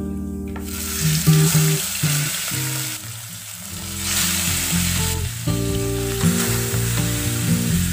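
Hilsa fish steaks frying in hot mustard oil with nigella seeds, a steady sizzle that starts about half a second in and grows louder around four seconds as another piece goes into the oil. Background guitar music plays throughout.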